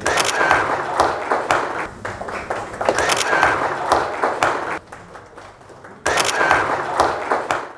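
Audience applauding, a dense patter of many hands clapping. It starts abruptly, drops away about five seconds in, and starts again abruptly about a second later.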